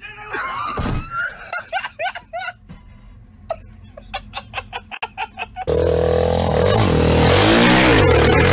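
A thud with a cry about a second in, followed by laughter in short repeated bursts. About two-thirds of the way through, it switches abruptly to loud music over a motorbike engine revving.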